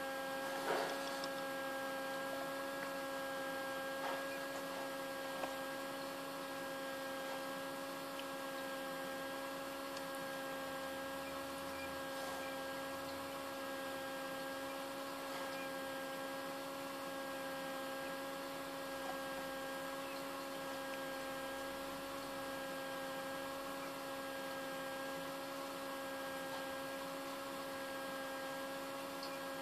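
Steady electric hum of a small egg incubator's fan motor, one low tone with a ladder of higher overtones that never changes. A brief sharp sound about a second in and faint ticks a few seconds later.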